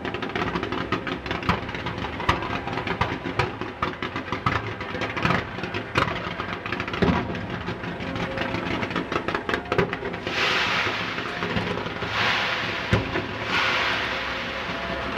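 Fireworks going off in a dense run of small crackling reports, with a few sharper bangs. From about ten seconds in, pulses of rushing hiss join the crackle.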